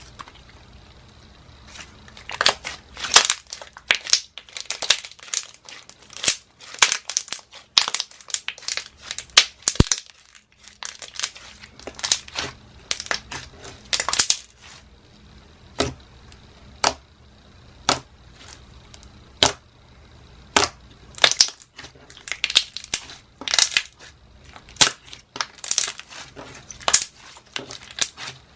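Thick glossy glue slime being pressed and stretched by hand, giving off loud, irregular bubble pops and crackles.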